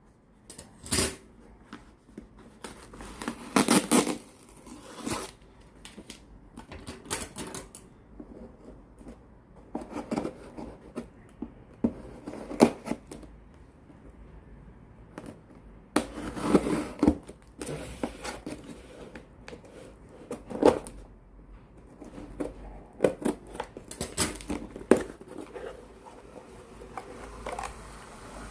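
A parcel being unboxed by hand: irregular scraping, tearing and sharp clicks of cardboard and packing material being cut open and handled.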